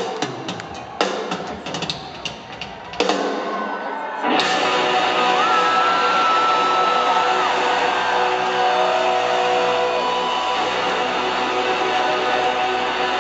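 Live rock band with electric guitars and drum kit: scattered drum hits and cymbal crashes, then about four seconds in the whole band comes in loud and holds a dense wall of distorted guitar, with slow guitar pitch bends over it.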